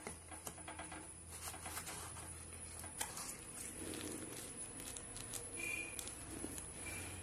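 Cardboard retail box and packing paper being handled during unboxing: light rustling and small scattered clicks, one sharper click about three seconds in, over a faint low hum.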